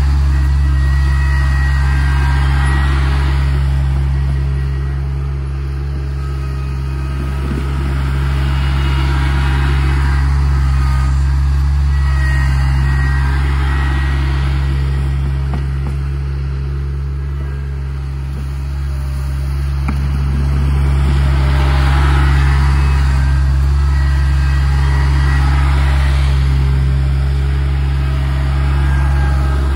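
New Holland compact tractor's diesel engine running steadily under load while it plows snow with its front blade. The sound swells and fades three times as the tractor passes close and moves away.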